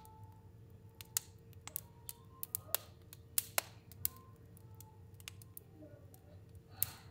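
Fire burning in a fireplace, crackling with irregular sharp pops and snaps, the loudest few around the middle.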